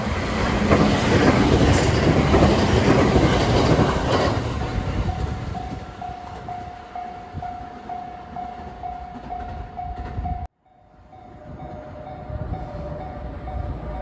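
A 521 series electric multiple unit passes close by, its wheels clattering over the rails, loudest in the first few seconds and then fading. A level crossing warning bell keeps ringing about twice a second. The sound cuts out briefly about ten seconds in, and the bell returns sounding two notes.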